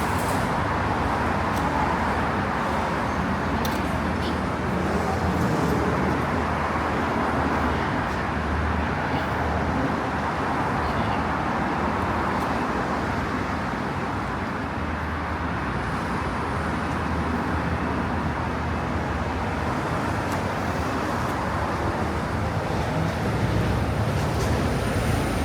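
Steady road traffic noise: a continuous rumble and hiss of passing cars, with no single vehicle standing out.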